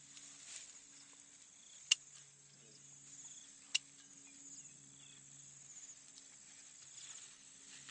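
Insects chirring steadily in the background, over a faint low steady hum, with two sharp clicks about two seconds apart.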